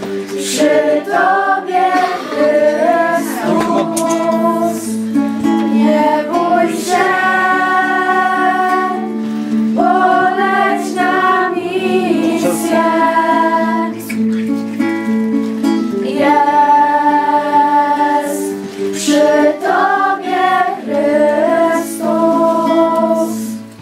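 A group of teenage girls singing a song together, holding long notes that change in steps.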